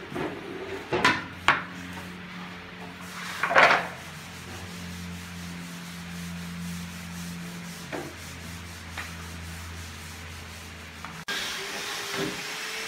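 Wooden door panels and frame pieces handled on a concrete floor: a few sharp knocks and one louder scrape of wood, over a low steady hum.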